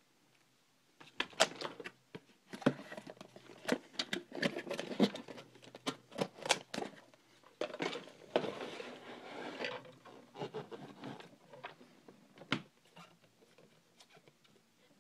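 Camera accessories and plastic packaging being unpacked by hand: a busy run of clicks, taps and rustles that starts about a second in and dies away near the end.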